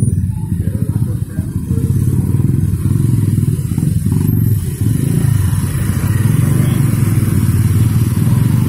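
Motorcycle and scooter traffic crossing close by: several small engines running and pulling away together in a continuous, loud rumble.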